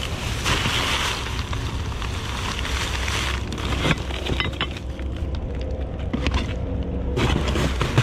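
Rustling and scattered knocks of discarded items being handled and moved while rummaging through a dumpster, over a steady low rumble. The rustling is heaviest in the first few seconds; short knocks come through the second half.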